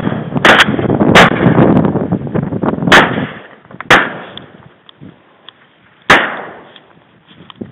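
Duck hunters' shotguns firing a volley: about five shots in the first four seconds, two of them almost together, then one more about six seconds in. The reports are trailed by a rolling echo that dies away after about three seconds.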